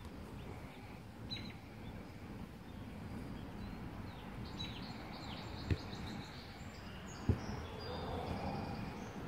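Outdoor background of birds chirping on and off over a steady low rumble of noise, with two short, dull knocks about six and seven and a half seconds in.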